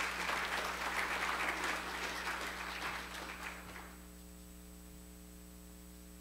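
Congregation applauding, tapering off and stopping about four seconds in, leaving a steady hum.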